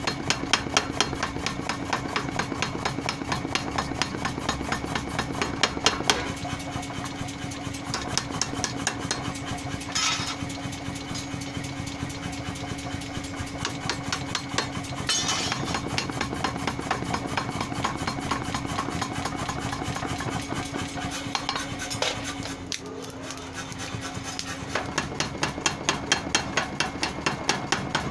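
Power hammer pounding red-hot steel held in tongs, a fast, steady run of blows over a constant machine hum. At times the ram strikes a hand-held top tool set on the work. The blows ease briefly a little after twenty seconds, then come back louder.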